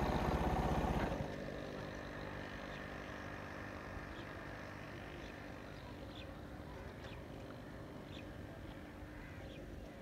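A steady engine running, louder for about the first second and then fainter, with a few short, high, falling bird chirps through the second half.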